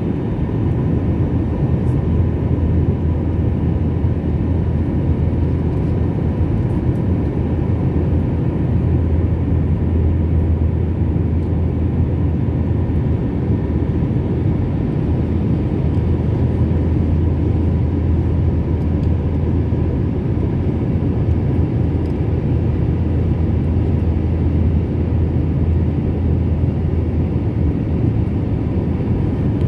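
Steady cabin noise of an airliner in flight: a constant low roar of engines and airflow, with a faint steady whine above it.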